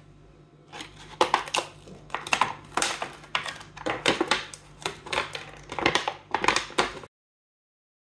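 Clear plastic sheet crinkling and crackling as it is crumpled and handled, with bits of hardened wood filler on it, in a string of crackles about two a second. It cuts off abruptly about a second before the end.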